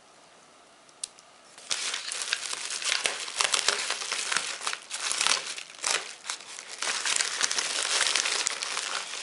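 Bubble wrap and a plastic bag crinkling and rustling as they are cut open and handled. The crinkling starts about two seconds in, after a single short click.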